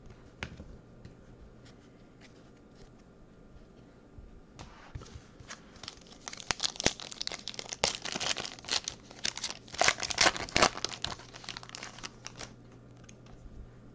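Foil wrapper of a trading-card pack being torn open and crinkled. The wrapper noise starts about four seconds in, is loudest past the middle, and dies away near the end. Before it there are only faint clicks of cards being handled.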